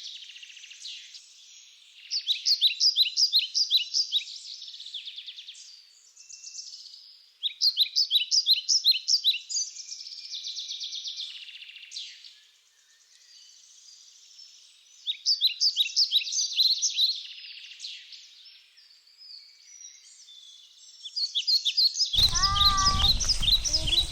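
Songbird singing in repeated bouts of rapid chirping notes, each bout lasting two or three seconds. Near the end a low rumble and a short falling voice-like sound join in.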